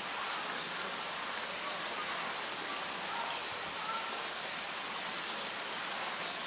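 Steady rushing background noise with faint distant voices.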